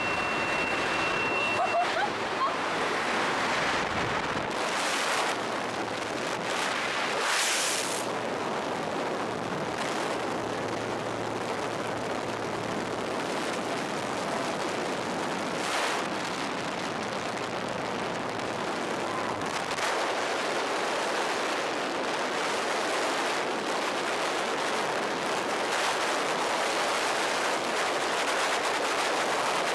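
Wind rushing steadily over the camera microphone: airflow through the open door of the jump plane, then the rush of tandem freefall. A few brief louder buffets.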